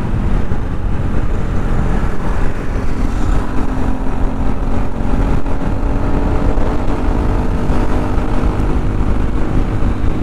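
Motorcycle engine running at a steady cruise, its pitch holding level, with wind rumbling on the microphone.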